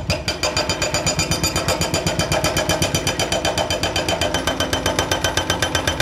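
Excavator's hydraulic drilling attachment hammering into a concrete road in a fast, even run of about seven blows a second, with the machine's engine running underneath.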